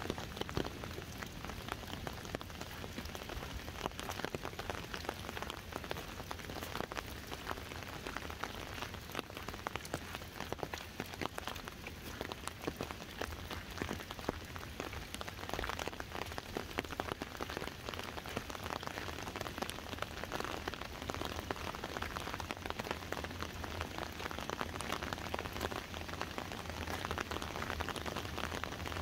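Rain falling on an umbrella held overhead: a dense, steady stream of small drop ticks over an even hiss.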